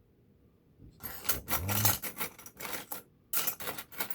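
Quick rasping, scraping strokes on a piece of steel paperclip wire being shortened because it is a little long. They start about a second in, pause briefly near the end, then resume.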